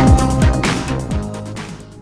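Electronic background music with a steady kick-drum beat, fading out.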